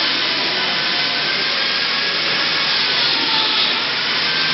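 Vertical metal-cutting band saw running with a steady whirring hiss.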